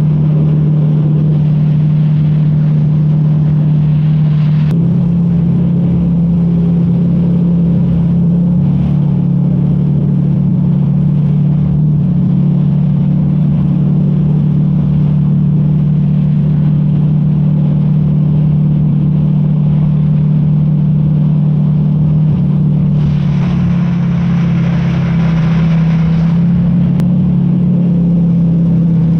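Airboat engine and propeller running at a steady cruising speed, a loud low drone throughout. Its pitch steps up slightly about five seconds in, and a rushing hiss joins it for a few seconds near the end.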